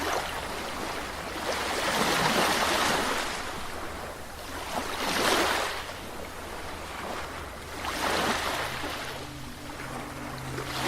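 Caribbean sea waves washing in, three surges of rushing water about three seconds apart. A low steady hum comes in about eight seconds in.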